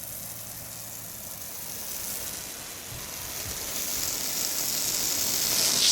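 Water spraying from a garden hose nozzle, a steady hiss that grows louder and brighter toward the end, as the freshly re-coupled hose is tested for leaks.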